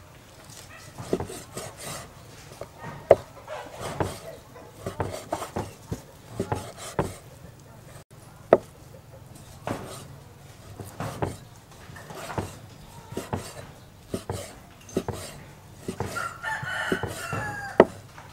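Cleaver cutting raw beef on a wooden chopping block: irregular knocks of the blade on the wood, a few of them sharp and loud among softer slicing strokes. Near the end a rooster crows.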